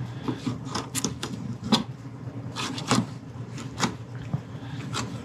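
A knife tip tapping and scraping on a plastic cleaning board as pin bones are trimmed from a fish fillet: a string of sharp, irregular clicks, about nine in all.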